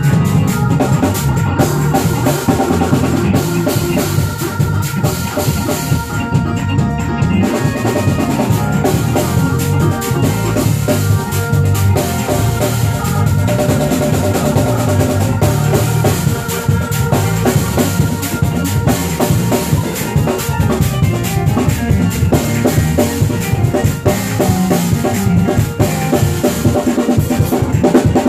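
Live church band jamming: a drum kit playing busy, rapid patterns on bass drum and snare over bass and organ.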